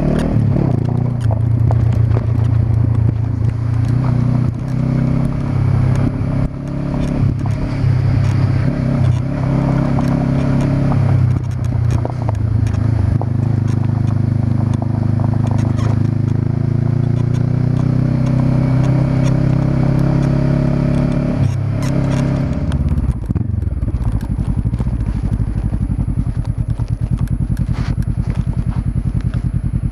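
Honda CB500X parallel-twin engine running at low revs over a rough dirt track, its pitch rising and falling with the throttle, with clatter and small knocks from the ride. About 22 seconds in it drops to a steady idle as the bike stops.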